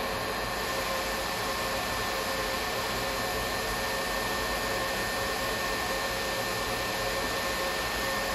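Heat gun running steadily, its fan blowing hot air onto a solder-seal wire connector to melt the solder and shrink the sleeve; a steady rush of air with a faint steady whine in it.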